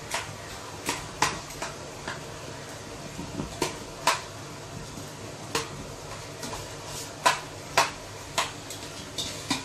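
A cooking utensil knocking and scraping against a pot while stirring sliced onion frying in oil: about ten irregular sharp clinks, roughly one a second, the loudest a little after 4 s and 7 s. A steady low hum runs underneath.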